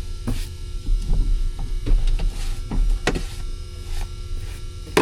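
A small motor humming steadily, with several brief knocks and clatters over it.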